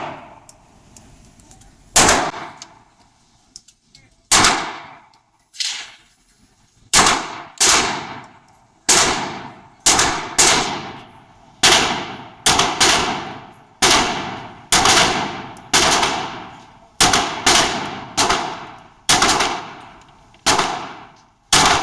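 Gunshots fired one after another: a few spaced shots, then a steady string of roughly one shot a second. Each loud crack is followed by a tail that dies away over most of a second.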